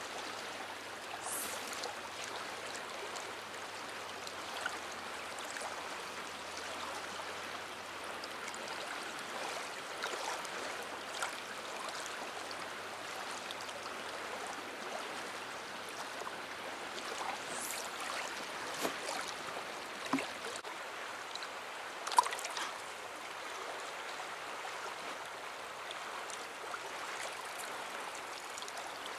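River water flowing steadily over a shallow riffle, an even rushing sound, with a few faint clicks, the sharpest about two-thirds of the way through.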